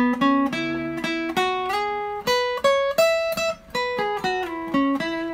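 Acoustic guitar playing a quick single-note major pentatonic lick, about three picked notes a second, climbing to a peak and then coming back down.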